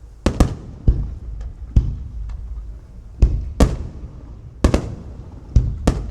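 Aerial firework shells bursting: about ten sharp booms at uneven intervals, some in quick pairs, each trailing off in an echo.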